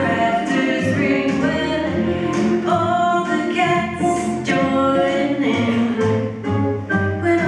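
Swing song with singing, playing without a break.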